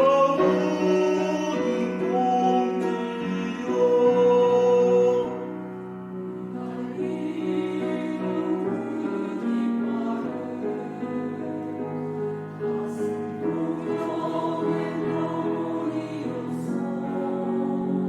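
A choir singing, loud for the first five seconds or so, then softer.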